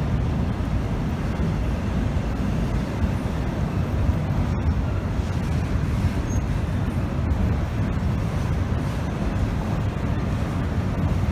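Freight train rolling past: a steady low rumble with no let-up.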